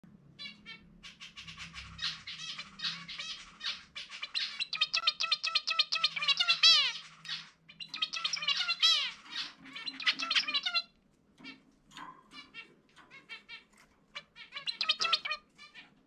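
Male zebra finch singing its own individual song: long runs of rapid, nasal, buzzy notes with a couple of falling slurred notes, then scattered single calls and a shorter run near the end.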